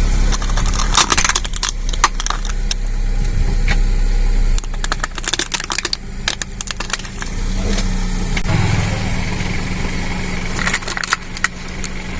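A car's motor runs steadily while it rolls over crunchy objects, crushing them with bursts of crackling and snapping.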